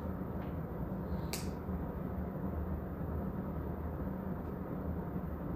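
Room tone with a steady low hum, and one small click about a second and a half in.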